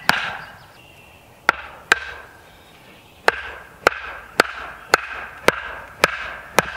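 Hammer driving wooden stakes into the soil: sharp, ringing blows. After the first blow comes a pause, then a quick pair, another pause, and then a steady run of about two blows a second.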